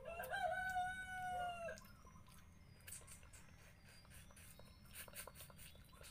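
A rooster crowing, its long final note held and falling slightly before it stops about two seconds in. After it come faint clicks and smacks of eating with the fingers.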